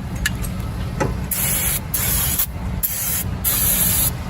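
Aerosol can of brake parts cleaner spraying in several sharp hissing bursts, starting about a second in, cleaning the brake caliper bracket after the old pad hardware has been removed.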